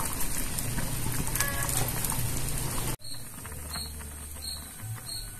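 A pot simmering over the fire, a steady hiss with small crackles and pops. After a cut about three seconds in, it is quieter, with a high chirp repeating about every three-quarters of a second over a low steady hum.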